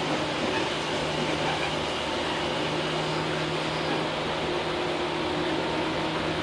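Tobu 8000 series electric train running: a steady rolling noise with a constant low hum underneath and no distinct rail-joint clacks.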